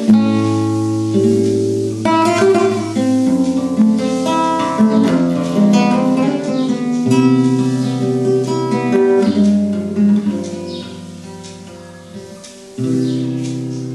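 Solo acoustic guitar playing a melody of plucked notes over ringing bass notes. The playing fades and then a loud chord is struck near the end.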